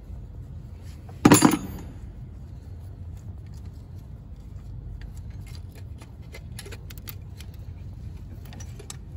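A loud metallic clank about a second in, with a short ring, then light metal clicks and rattles of a spanner working on the timing belt tensioner.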